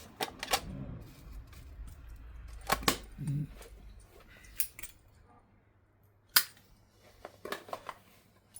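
Irregular clicks and knocks of small parts and tools being handled on a workbench, with one sharp knock about two-thirds of the way through.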